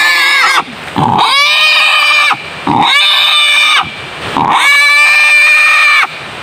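A young wild boar caught in a snare squeals in distress as it is held and tied. The squeals are long, loud and high, coming one after another with short breaks, about one every second and a half.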